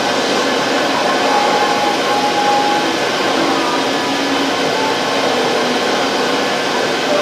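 Greenheat Airmax forced-draught boiler running: the combustion-air blower and the fan-fed flame over the burner make a loud, steady rushing noise.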